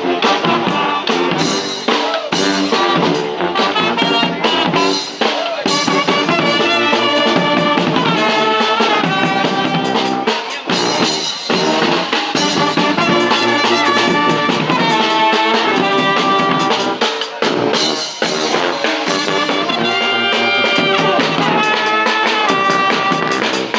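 Brass band playing a tune live: trumpets and trombones playing held, melodic lines over a steady drum beat.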